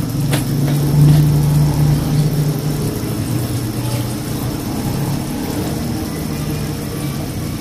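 A steady low mechanical hum like a running motor, stronger for the first three seconds and then fainter.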